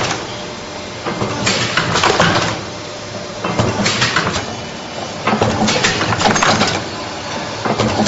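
Gear-driven pneumatic wire-forming machine running through its buckle-forming cycles: a noisy burst of metal clatter about every two seconds, four times, over a steady running hum.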